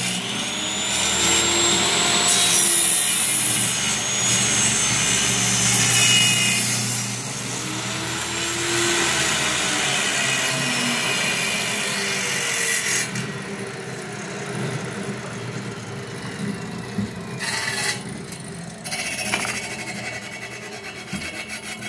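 Table saw cutting through a wooden block pushed on a small-parts sled, the blade's cutting noise loud and steady for the first dozen seconds, then quieter and more uneven about thirteen seconds in as the cut finishes.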